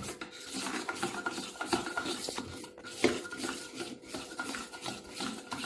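Gram-flour (besan) batter being stirred briskly in a stainless steel bowl: quick, irregular scraping and clinking against the steel, with one louder knock about three seconds in.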